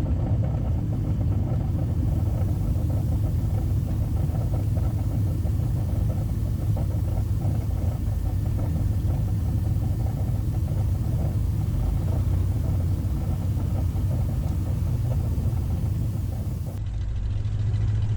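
Cessna Skymaster's push-pull twin piston engines running at low power while taxiing after landing, a steady low drone heard in the cabin.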